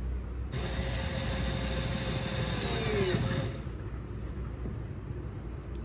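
Power drill running for about three seconds, then winding down in pitch as the trigger is released.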